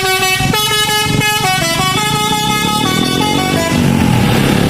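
Bus telolet horn, a set of air horns, playing a quick tune of stepped notes that changes pitch several times a second. Near the end the tune stops and an engine revs up with a rising pitch.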